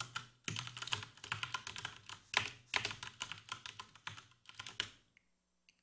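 A computer keyboard being typed on: a run of quick, irregular keystrokes that stops about five seconds in.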